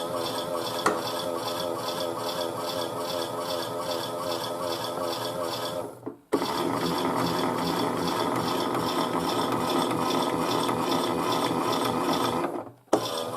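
Small battery motor of a Chad Valley toy washing machine turning the empty drum in its rinse action, a steady whir with a regular pulsing rattle. It stops briefly about six seconds in and restarts, and does so again near the end.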